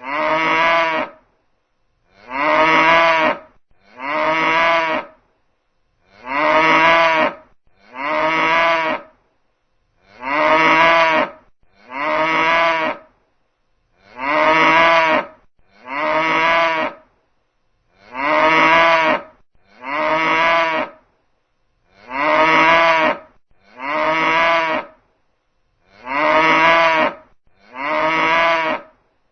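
Cow mooing: short moos of about a second each, repeated in pairs at an even pace with brief silences between the pairs.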